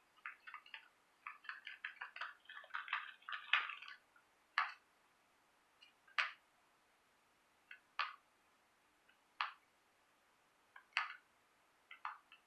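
Small-animal chirps and squeaks from a cat-entertainment video: a rapid flurry of short high chirps for about four seconds, then single short, scratchy chirps every second or two.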